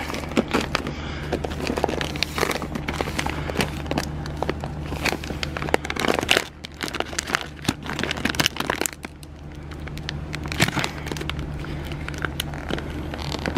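Bag of dry cat food crinkling and rustling in the hand as it is taken off the shelf and turned over, over a steady low hum.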